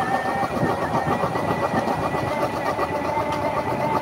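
The engine of a power engine gari running steadily as the vehicle drives along, with a steady whine over the engine noise.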